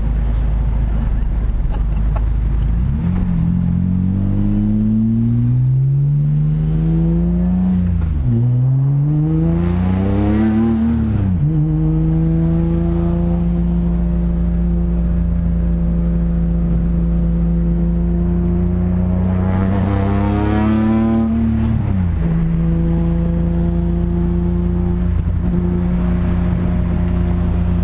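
BMW with a BimmerWorld race exhaust accelerating hard, its engine note climbing and falling at each of two upshifts, then cruising at steady revs. Near the end the revs rise briefly and drop again before settling into a steady drone.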